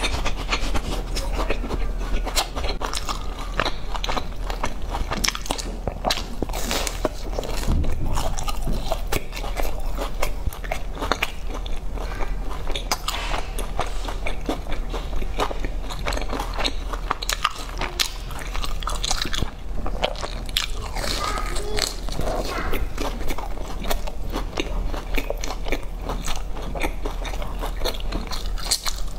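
Close-miked biting and chewing of a crunchy round biscuit: a steady run of crisp crunches and crackles as it is bitten and chewed.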